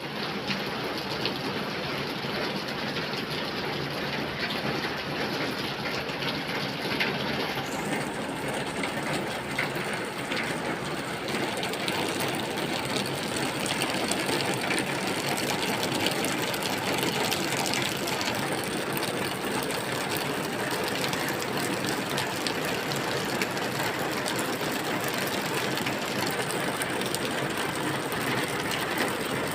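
Steady rain falling, an even hiss of many drops; it becomes brighter from about eight seconds in.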